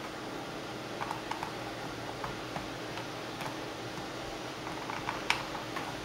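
Small scattered clicks and ticks of a screwdriver backing screws out of a Toshiba L635 laptop's plastic bottom case, with a sharper click about five seconds in, over a steady low hum.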